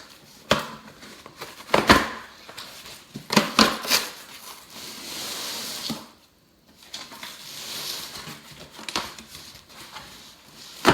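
Stapled cardboard box being opened by hand: several sharp snaps and scrapes of the cardboard flaps in the first few seconds, then rustling and sliding of cardboard with a few lighter clicks.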